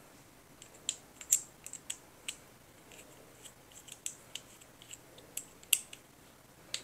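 Scattered light clicks and ticks of a small screwdriver working the clamp screw of a nylon flip-up sight to loosen it, with the plastic sight parts clicking in the hands; two clicks, about a second in and near the end, stand out.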